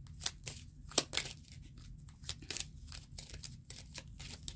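A deck of tarot cards being handled and shuffled by hand: an irregular run of small card clicks and flicks, the sharpest about a second in.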